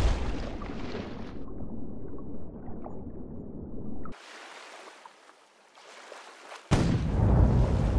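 Muffled low rumble of water heard from a camera under the surface, cutting off abruptly about four seconds in to a faint hiss, then a loud low rumble starts again suddenly near the end.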